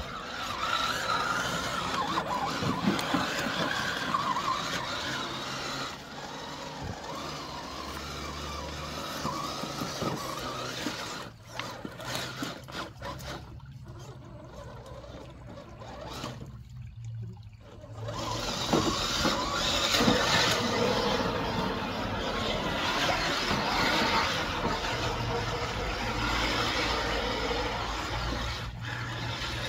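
Radio-controlled crawler truck driving through a shallow rocky creek: its electric motor and gears whine as the throttle changes, over the sound of moving water. The sound drops out briefly twice around the middle.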